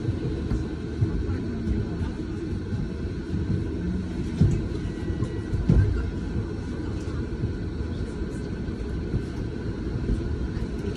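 Low, steady rumble inside a double-decker bus heard from the upper deck, with a couple of dull knocks about four and a half and six seconds in.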